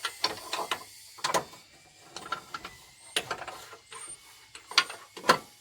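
Irregular clicks, taps and knocks of tools and small metal parts being handled by hand.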